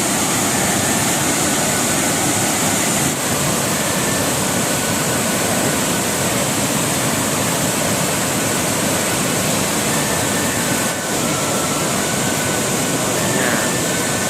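Large waterfall, about 40 m high, in heavy flow after days of rain: a loud, steady rush of falling water.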